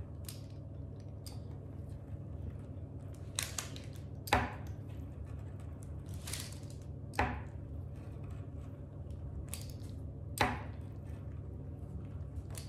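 Pizza-cutter wheel rolling through a sheet of chickpea-flour dough on parchment paper, with about five sharp scrapes or knocks, a second or more apart, as strips are cut. A steady low hum runs underneath.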